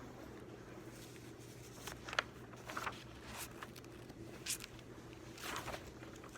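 Scattered soft rustles and clicks of paper and stationery being handled at a desk, with one longer rustle a little past halfway, over a steady low hum.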